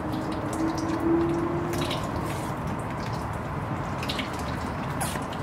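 Transmission fluid running steadily out of a cooler-line hose and splashing into a plastic bin as the transmission cooler is back-flushed with a pump.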